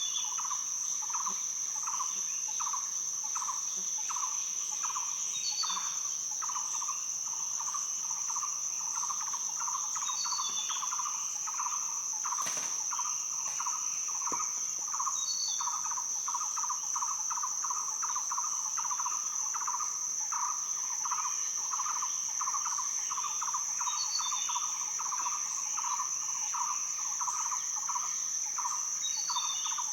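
Nature ambience of insects: one steady high-pitched trill and a lower chirp pulsing two to three times a second, with a short bird call every few seconds and one sharp click about twelve seconds in.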